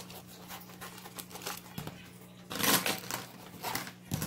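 Plastic felt-tip markers and pens clattering onto a paper notebook page as they are set down and pushed into a pile, with a louder burst of clicks about two and a half seconds in and a sharp click near the end.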